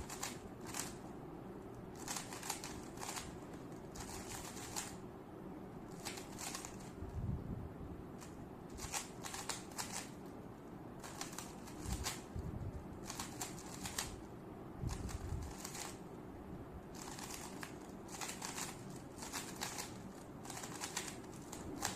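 Rubik's cube being turned fast in a speed solve: runs of quick plastic clicks and clacks with short pauses between them, and a few dull thumps along the way.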